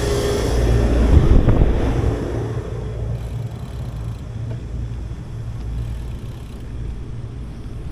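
A motor vehicle passing close, loudest about a second and a half in and then fading, over a steady low wind rumble on the action camera's microphone as the bicycle rolls along.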